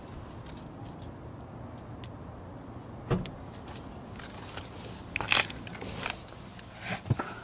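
Car keys jingling, with a few sharp clicks and knocks as they are handled near the ignition. One comes about three seconds in, the loudest cluster a couple of seconds later, and more near the end, over a steady low hum.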